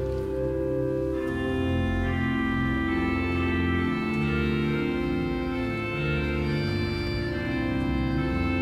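Church pipe organ playing slow, held chords. About a second in, brighter, higher-pitched tones join the chord.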